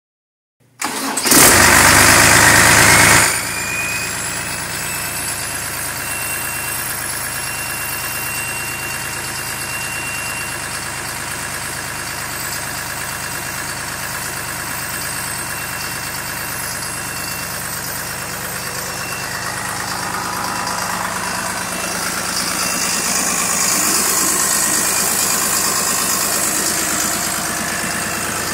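Deutz BF6L914C air-cooled turbocharged six-cylinder diesel engine starting: a loud burst of cranking and firing about a second in, lasting about two seconds, then settling into a steady idle with a thin high whine over it. The running sound grows somewhat louder for a few seconds near the end.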